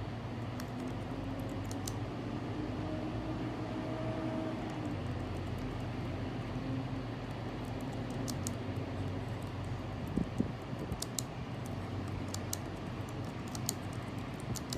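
A steady low hum with a few scattered sharp clicks, spaced irregularly and some seconds apart.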